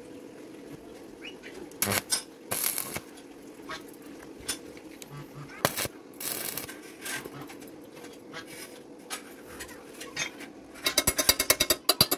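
Short crackling bursts of a stick-welding arc tack-welding a steel plate to a square steel tube, over a faint steady hum. Near the end, a fast even run of metal taps, about ten a second, from a chipping hammer on the welds.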